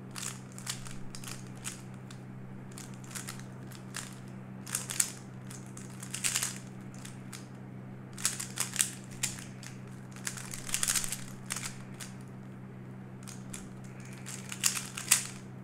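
Plastic puzzle cube being solved by hand. Its layers are turned in quick spurts of clicking and clacking, separated by short pauses, over a steady low hum.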